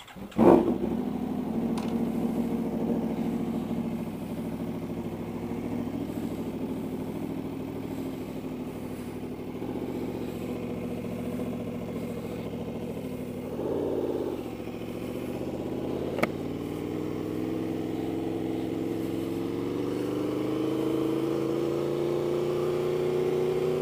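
2015 Aprilia Tuono V4's V4 engine, fitted with a GPR Thunderslash aftermarket exhaust, starting with a loud burst about half a second in, then running steadily at low revs. Over the last few seconds the engine note rises gradually as the bike pulls away.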